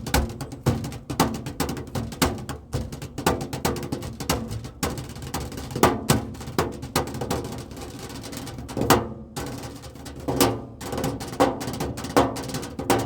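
Improvised drumming on everyday objects: quick, irregular taps and knocks, several a second, with a couple of brief gaps near the middle.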